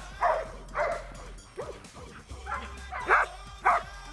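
Belgian Malinois barking repeatedly at a decoy while escorting him, a guarding bark of the Mondioring escort exercise. The barks come about two a second, weaker for a moment midway.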